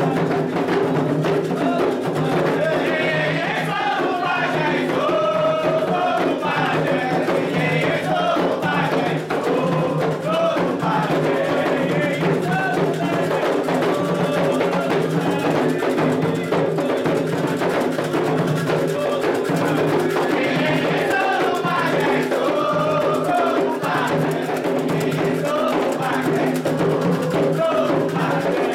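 Candomblé atabaque drums playing a steady, driving rhythm under sung cantigas for Oxum; the voices rise and fall in pitch over the drumming.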